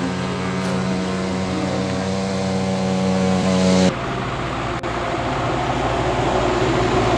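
A motor vehicle's engine running steadily at a constant pitch. About four seconds in, the sound changes abruptly to a louder rushing noise with a low rumble, like traffic or a vehicle driving.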